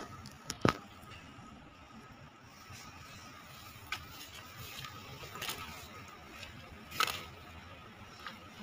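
Handling noise from a handheld phone: a few sharp clicks and knocks, the loudest just under a second in and another about seven seconds in. Under them runs a faint steady background with a thin high hum.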